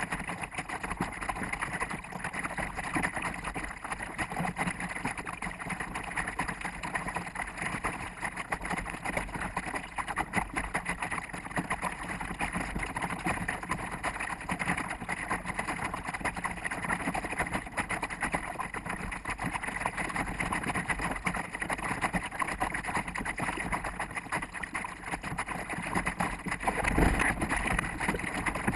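Wind and water rushing past a small sailboat's hull and deck, played back at four times normal speed, with a louder rush near the end as the boat heels over.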